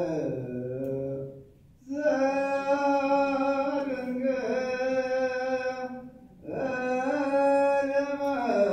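Unaccompanied Ethiopian Orthodox liturgical chant: long held, ornamented notes with slow glides in pitch, broken by two short pauses about a second and a half and six seconds in.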